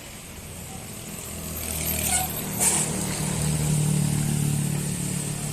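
Engine of a passing road vehicle growing louder over the first few seconds, then holding steady. A brief sharp hiss comes about two and a half seconds in.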